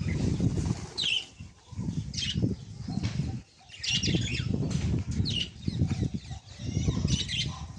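A flock of domestic pigeons flapping their wings in repeated flurries as they land and jostle over scattered grain, with a brief lull about three and a half seconds in. Short high-pitched sounds come now and then over the fluttering.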